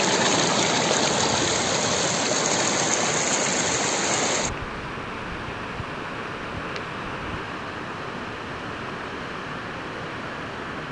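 Mountain stream rushing over rocks, loud and steady. About four and a half seconds in it cuts off suddenly to a quieter, even rushing noise.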